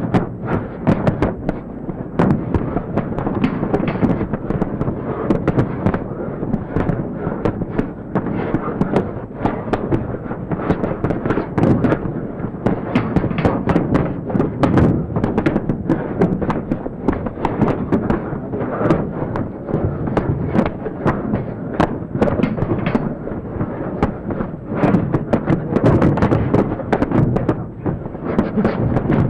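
Dense, continuous crackling with many sharp pops packed closely together, rising and falling in loudness without pause.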